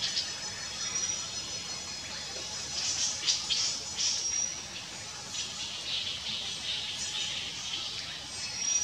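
Tropical forest ambience: a steady high-pitched insect drone with bursts of hissy noise that swell and fade, and a few short whistled bird notes, one about a second in and another near the middle.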